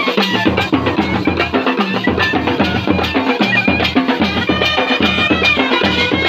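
A brass band playing live: trumpets play the tune over a fast, steady beat of bass drums and snare drums.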